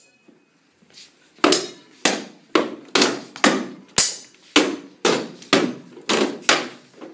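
Swords striking round wooden shields in a stage fight: about a dozen sharp knocks, roughly two a second, each with a short hollow ring.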